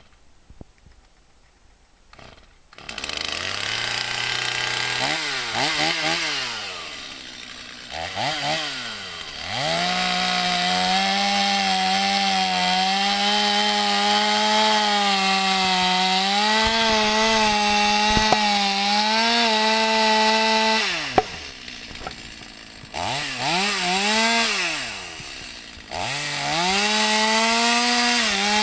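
Stihl MS250 two-stroke chainsaw comes in at idle about three seconds in and is revved up and down a few times. It then runs at full throttle, cutting into a tree with a chain dulled from cutting through metal air-conditioner coils. Near the end it drops back, revs twice and goes back to full throttle.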